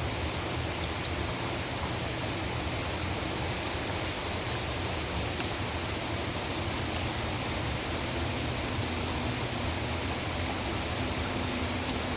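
Mack McNeilus front-loader garbage truck's diesel engine running steadily, a low hum under a constant rushing noise.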